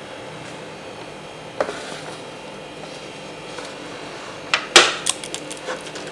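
Plastic keycaps clicking as they are handled and set into their storage case: a single click about a second and a half in, then a quick cluster of sharp clicks near the end.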